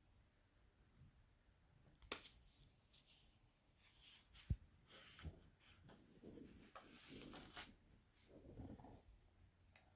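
Faint rustling and scattered clicks of small items being handled, with a sharp click about two seconds in and a louder knock about four and a half seconds in.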